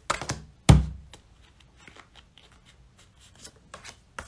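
Tarot deck being handled: soft card clicks and rustles, with one sharp knock a little under a second in.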